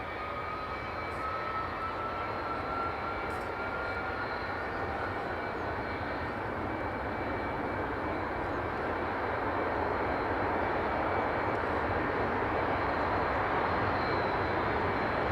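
Jet airliner engine noise: a whine slowly rising in pitch over the first several seconds over a steady rushing roar that grows gradually louder.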